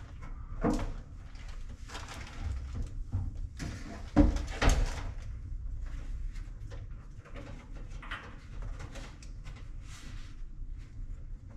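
Handling noises from reassembling a GE Spacemaker stacked dryer: irregular knocks and clicks as parts and wiring quick connects are worked into place, with rustling in between. The loudest knocks come just under a second in and about four seconds in.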